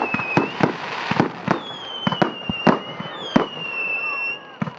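Backyard fireworks going off: a rapid, irregular string of sharp bangs and pops, with several high whistles, each lasting about a second and dipping slightly in pitch.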